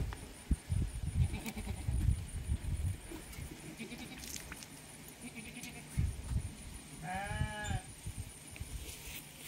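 A goat bleats once, a short wavering call about seven seconds in, over low bumps and rustling.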